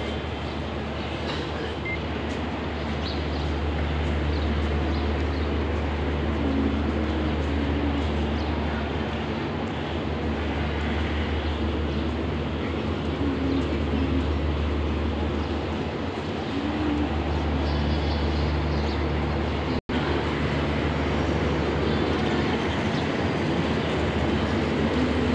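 Steady low drone of an idling diesel train engine, swelling and easing a little. The sound cuts out for an instant about twenty seconds in.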